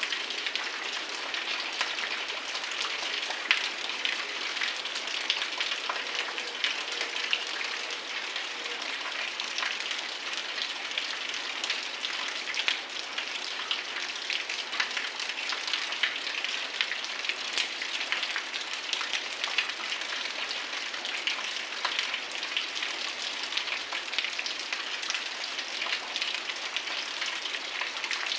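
Heavy rain falling steadily, a dense even hiss dotted with many sharp ticks of drops striking nearby surfaces.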